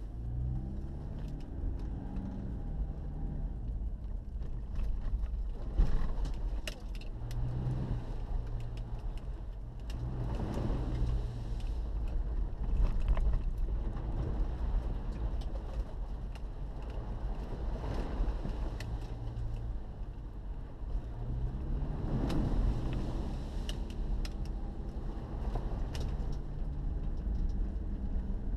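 Off-road vehicle driving over a rough, rutted track, heard from inside the cabin: the engine's pitch rises and falls several times as it speeds up and slows, over a steady low rumble from the road, with scattered rattles and knocks from the body.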